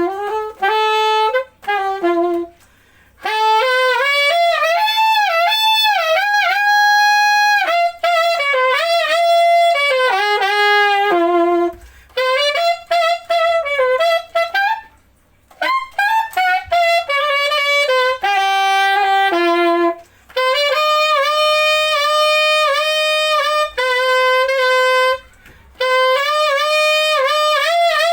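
Yamaha YAS-855 Custom alto saxophone playing an unaccompanied melody in phrases, with short breaks between them and vibrato on the held notes.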